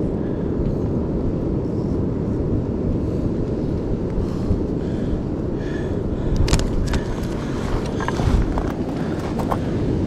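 Steady low rush of wind and ocean surf, with a few faint clicks a little past the middle.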